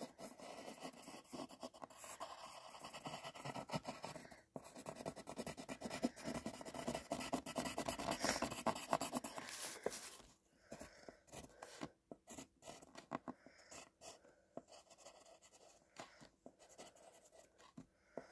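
Drawing on paper, the tool scratching across the sheet in quick, close strokes for about the first ten seconds, then sparser and fainter strokes.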